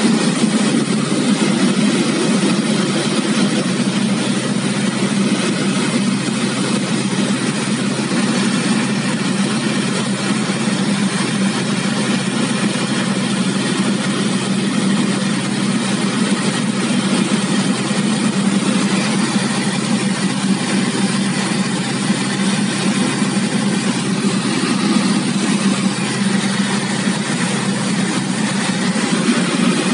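Piper Warrior's four-cylinder Lycoming engine and propeller running steadily on final approach, heard from inside the cabin as a loud, even drone.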